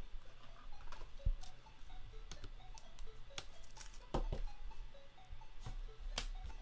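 Trading cards and a clear plastic card holder handled by hand: scattered light clicks, taps and rustles, with sharper clicks about four seconds in and again about six seconds in.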